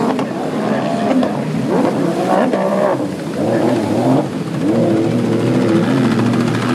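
Several racing runabout personal watercraft engines revving as the skis race past, their pitch sliding up and down; one climbs steadily near the end.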